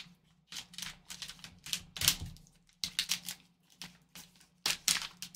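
Foil trading-card pack crinkling and crackling as gloved hands open it and slide out the card inside: a run of irregular sharp crackles and small taps.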